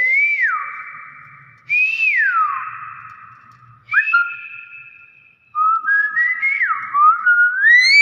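Hill myna whistling: four loud whistled phrases about two seconds apart, each rising and then sliding down in pitch, with a ringing tail after each. The last phrase climbs in steps to a high peak near the end.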